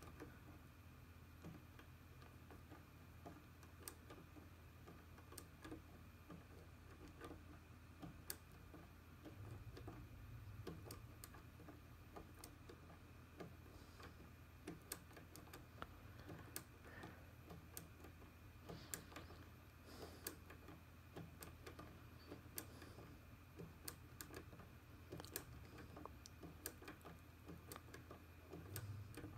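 Faint, irregular small clicks of a Turbo Decoder HU66 lock-decoding tool being turned by hand in a first-generation VAG ignition lock, as its dial is stepped and tension applied to try to make the lock turn.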